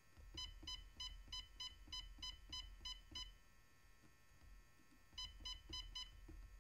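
Humminbird Helix 12 fish finder giving a short electronic key beep with each click of its rotary dial as the lower-range setting is stepped: a run of about ten beeps, about three a second, a pause of about two seconds, then another run starting about five seconds in.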